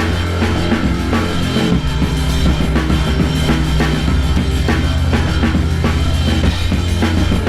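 Rock music with a drum kit keeping a steady beat over a held bass line that changes notes twice.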